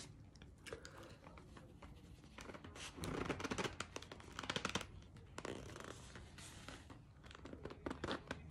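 Close-up crackly scratching from cornstarch being eaten from its package, loudest in two dense clusters about three and four and a half seconds in, with a smaller flurry near the end.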